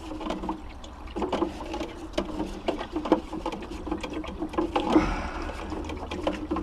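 Bamboo cane stirring about 8 litres of water in a plastic watering can, the water sloshing and the cane knocking irregularly against the can's sides, mixing in clay that holds nematode eggs.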